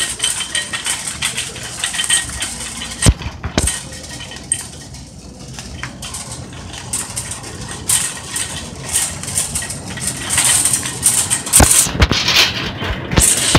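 Wire shopping cart being pushed over a hard store floor, its wheels and basket rattling steadily, with a few sharp knocks.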